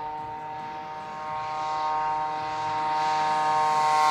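Electric radio-controlled scale P-51 Mustang model plane flying, the steady whine of its motor and propeller growing louder as it approaches.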